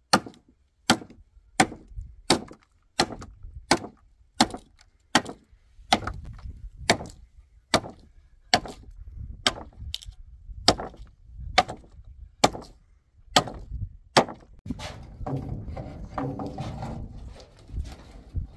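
A steady series of sharp, hard strikes, about one every 0.8 seconds, some twenty in all, that stops about fourteen seconds in.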